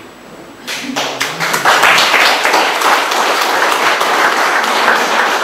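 Audience applauding: a few claps start about a second in and swell into steady applause.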